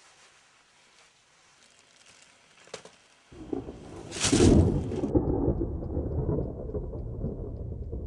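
A rumble of thunder starts suddenly about three seconds in and swells to a loud crack, then settles into a steady low rumble with rain.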